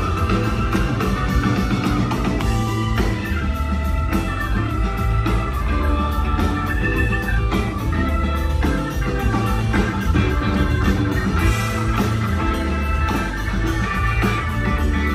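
Live rock band playing at full volume: electric guitar lines over drums, bass and keyboards.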